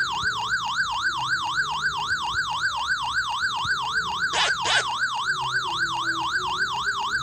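Electronic siren warbling quickly up and down, about four cycles a second, with a couple of fast falling zap-like sweeps about four and a half seconds in.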